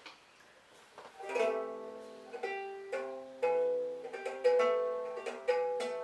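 Ukulele chords strummed one at a time, starting about a second in. Each chord rings out and fades before the next stroke, about one a second.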